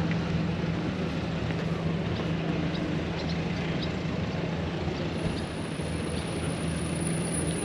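A steady low engine hum at one unchanging pitch, with outdoor noise over it.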